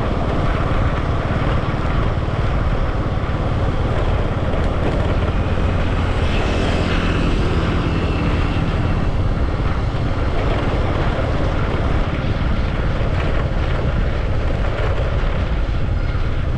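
Steady rumble of a moving vehicle, with wind buffeting the microphone.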